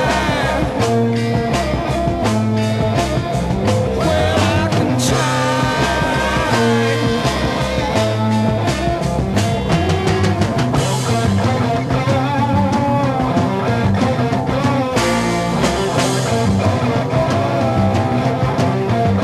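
Late-1960s psychedelic rock band recording in an instrumental stretch: electric guitars, bass and drums playing steadily, with a lead line gliding and bending in pitch.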